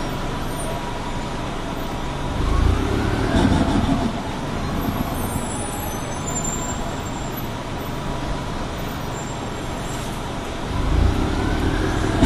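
Detroit Diesel Series 50G natural-gas engine and Allison B-400R automatic transmission of an Orion V CNG bus running, with a thin steady whine. About two seconds in and again near the end, the sound swells louder and its pitch rises and then falls.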